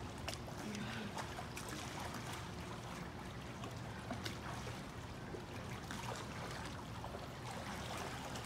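Pool water sloshing and lapping as children swim, with small splashes now and then.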